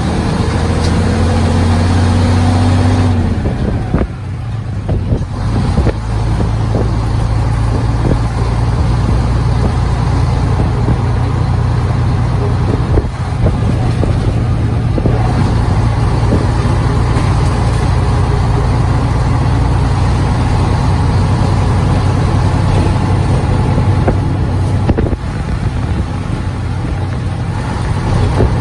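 Engine and road noise of a moving vehicle heard from inside its cabin: a steady low drone, with a slightly rising engine whine over the first three seconds that stops suddenly.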